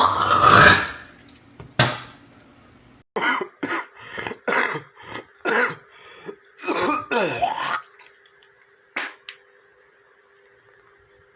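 Wet, chesty human coughing: a loud cough at the start and another about two seconds in, then a fit of about ten quick coughs in a row that ends about eight seconds in. After that only a faint steady hum with a single click.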